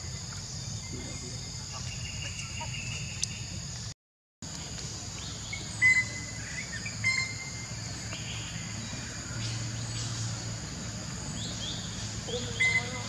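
Outdoor ambience: a steady high insect drone over a low hum, with a few short chirps about six seconds in, a second later, and near the end. The sound drops out for a moment about four seconds in.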